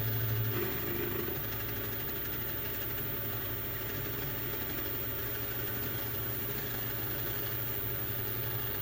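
Milling machine's inverter-driven spindle motor running with a steady low hum while taking a light cut on a lathe tool holder.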